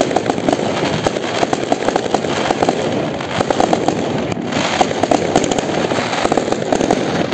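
Aerial firework shells exploding overhead: a dense, unbroken run of bangs and crackling bursts.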